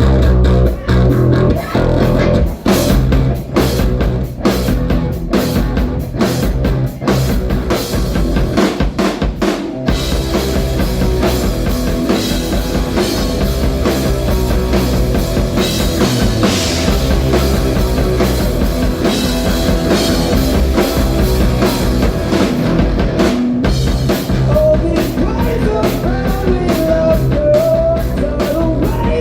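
A live rock band playing drum kit, electric guitar and bass. The drums hit sharp accents for about the first ten seconds, then the band settles into a steadier full groove, and a higher melody line comes in near the end.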